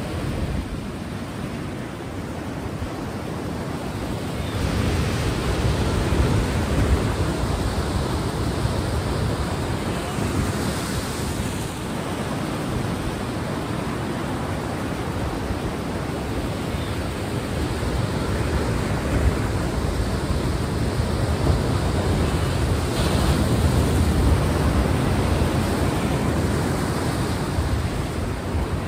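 Ocean waves washing on a shore, a steady rush that swells and falls back every several seconds.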